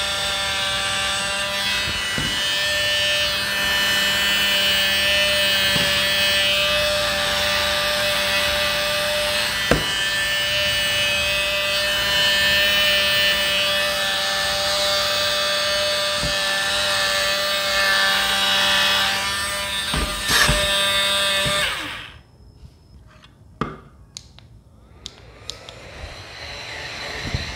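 Small electric motor of a handheld rechargeable mini fan running at a steady high whine, with a few light knocks. It cuts off abruptly about three-quarters of the way through. After a few clicks, another small fan motor starts up and rises near the end.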